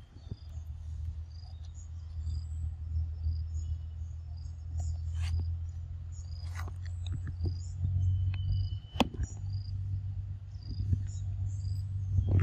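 Insects chirping in short, repeated high notes over a steady low rumble, with scattered sharp clicks and rustles, one louder click about nine seconds in.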